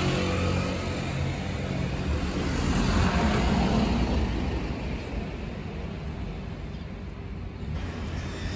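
Road traffic: a vehicle drives past close by, loudest about three to four seconds in, then fades back to a steady road hum.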